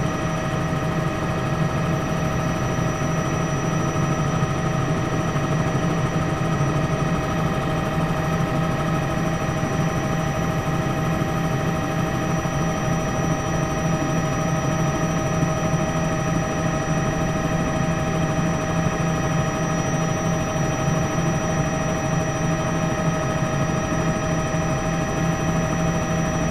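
News helicopter's engine and rotor noise, a steady drone with several steady high-pitched whines above it.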